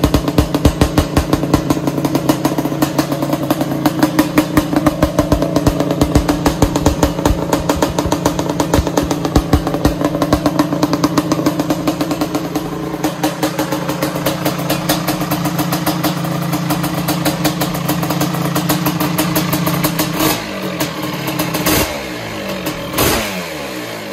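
Suzuki LT500R Quadzilla's 500 cc two-stroke single running through a Dr. Q exhaust on the freshly built engine's first start-up, a fast, even beat of firing pulses at steady revs. Near the end come several sharp throttle blips, each rising and then falling back.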